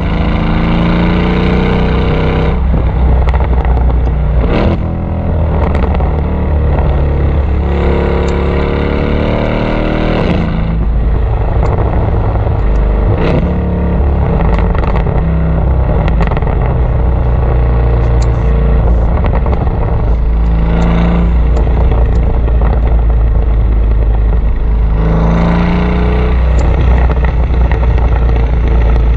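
Tuned Mercedes-Benz W212 E63 AMG V8 exhaust on the move. It climbs in pitch under hard acceleration three times: at the start, about eight seconds in, and near the end. In between, off the throttle, the exhaust pops and crackles on the overrun.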